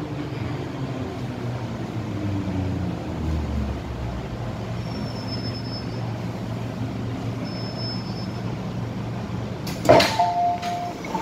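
MTR M-Train running and braking into a station, its traction motors humming with low tones that fall in pitch as it slows. About ten seconds in there is a sharp clunk, then a two-note descending chime, typical of the train's door chime, which starts again at the end.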